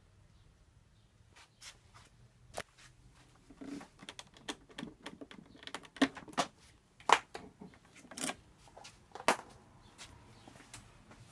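Handling noise from a Vox AC30 guitar combo amp being touched and shifted: irregular clicks and knocks, the sharpest about six, seven and nine seconds in.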